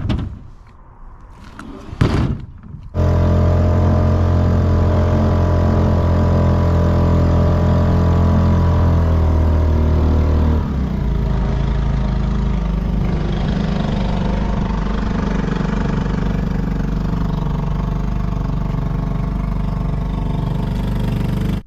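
Boat engine running steadily. It starts abruptly after a couple of knocks and shifts to a lower, rougher note about halfway through.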